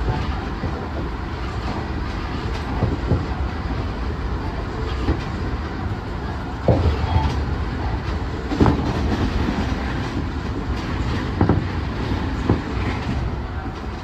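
Tobu Tojo Line electric train running at speed: a steady rumble with the wheels knocking over rail joints every second or two, at uneven spacing.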